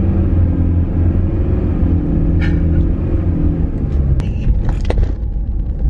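Car cabin noise while driving: a steady low engine and road rumble, with a few short knocks and rattles in the second half.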